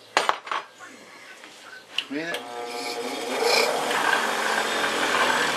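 A few sharp clicks, then a Dremel rotary tool fitted with a very small drill bit switches on about two seconds in, its whine rising in pitch as it spins up, and runs steadily.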